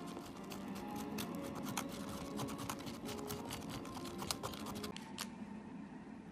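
Chopsticks clicking and scraping against a styrofoam nattō tray as the sticky fermented soybeans are stirred: a quick, irregular run of small clicks that stops about five seconds in.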